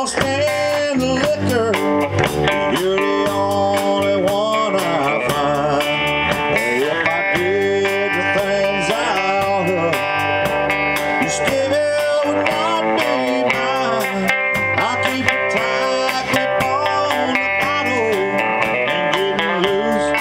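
A live band playing: electric guitars over a drum kit with cymbals, with a lead line that bends up and down in pitch.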